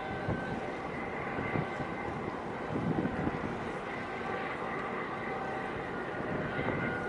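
Steady drone of a boat's engine with faint whining tones, alongside water wash. Wind buffets the microphone now and then.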